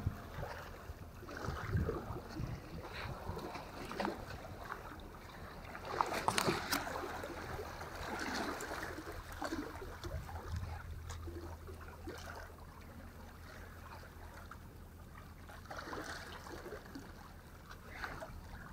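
Seawater sloshing and splashing against the rocks of a jetty, with a few sharper splashes about six to seven seconds in.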